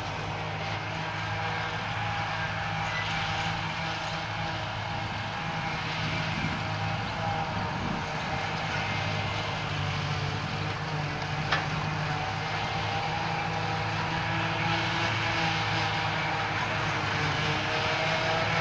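John Deere 8800 self-propelled forage harvester running steadily under load as it chops grass for silage, with the tractor and trailer alongside: a continuous engine drone with a few steady tones in it, and one short click a little past the middle.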